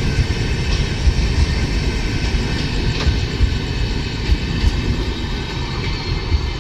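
Passenger train passing at speed, a steady loud rumble of coaches and wheels on the track with light rail clicks.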